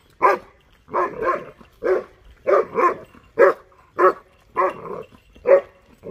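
A six-and-a-half-month-old German shepherd barking repeatedly at buffaloes, about ten sharp barks one after another, some in quick pairs.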